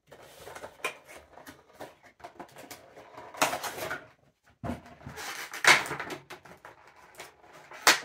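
Cardboard box and plastic insert of a Funko Pop vinyl figure rustling, scraping and clicking as the figure is worked out of its packaging, with louder crinkly bursts about three and a half, five and a half and eight seconds in.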